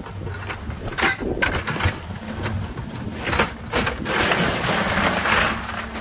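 Boat's outboard motor running steadily, with several sharp knocks and a rush of noise lasting over a second about four seconds in.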